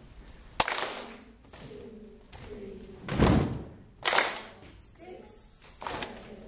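A group clapping and stomping a slow body-percussion pattern: a clap about half a second in, a heavy foot stomp about three seconds in, then two more claps.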